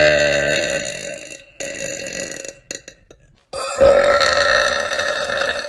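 A woman burping loudly, three belches in a row: a long drawn-out one, a shorter one, then another long one of about two seconds near the end.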